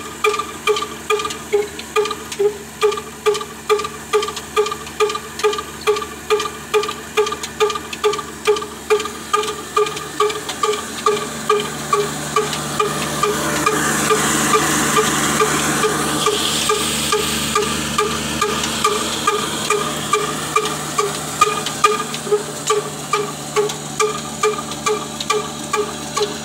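Slow-running single-cylinder diesel engine with a large flywheel, belt-driving a flour mill, beating steadily at about two and a half beats a second, with a ringing tone on each beat. About halfway through, a rushing hiss swells for several seconds as grain runs through the grinder, then the engine beat comes back to the fore.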